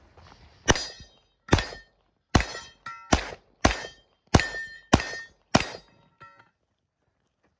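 Pistol fire at steel poppers: eight shots, roughly one every three quarters of a second, with the steel ringing briefly after several of the hits. A last fainter clang from the steel comes a little after the final shot.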